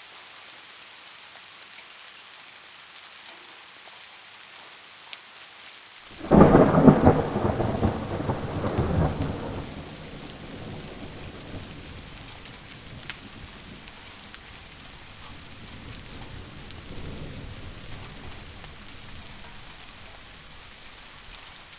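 Steady rain with a loud thunderclap that breaks suddenly about six seconds in and rumbles away over the next few seconds; a fainter rumble of thunder follows later.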